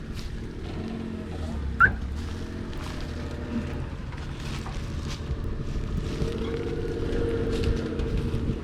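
A motor vehicle's engine running, growing louder from about six seconds in, with one sharp knock about two seconds in.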